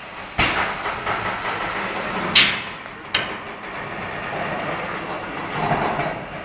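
Airless paint-spraying equipment working: a hiss starts suddenly, then a short, louder, sharper hiss comes about two and a half seconds in and another shortly after. A thin, steady high whistle joins from the second hiss onward.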